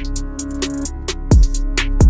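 Hip-hop instrumental with a drum-machine beat: booming 808-style kicks that drop in pitch, quick hi-hat ticks and a held bass note.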